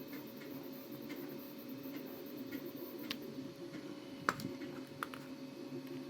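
A few sharp clicks and taps of hard 3D-printed plastic toy parts being handled and pressed together, the loudest about four seconds in, over a steady low hum.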